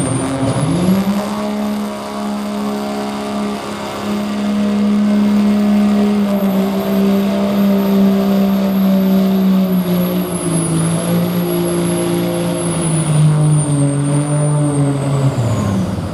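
Turbocharged diesel pickup truck under full load pulling a sled: the engine is held at high revs with a high turbo whistle over it. The whistle climbs in the first second or two, then the revs sag in the last few seconds and drop off as the pull ends.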